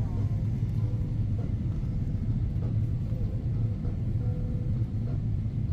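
Steady low rumble of an airliner's cabin in flight: engine and airflow noise, even and unbroken.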